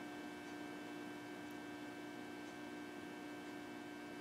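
Transformer humming steadily under load, its output loaded by a short piece of high-resistance kanthal wire while it draws a couple of amps.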